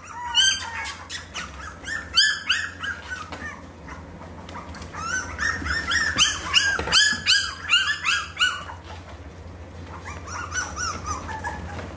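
A litter of four-week-old Aussiedoodle puppies whining and yelping in bouts of short, high-pitched cries, hungry as the mash bowl is set down.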